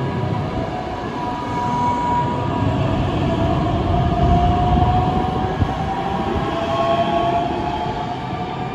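Red DB Regio electric multiple unit, a Bombardier Talent 2, pulling away from the station. Its traction motors give a whine that rises slowly in pitch as it gathers speed, over a steady rumble of wheels on rail.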